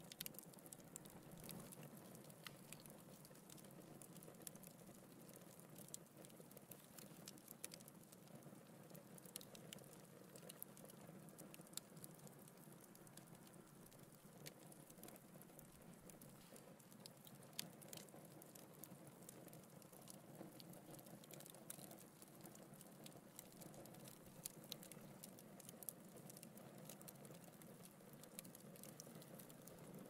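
Wood logs burning in a fireplace: faint, irregular crackling and small pops over a soft, steady hiss of the fire.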